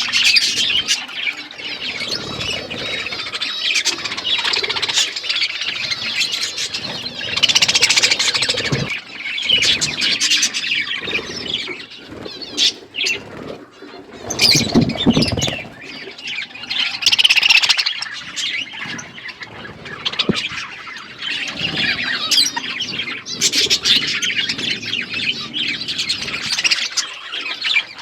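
Budgerigars chattering: several birds warbling, chirping and squawking at once without a break, with a louder, lower-pitched burst about halfway through.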